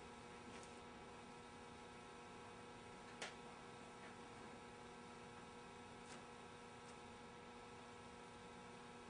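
Near silence: a faint, steady electrical hum, with a few faint clicks, the clearest about three seconds in.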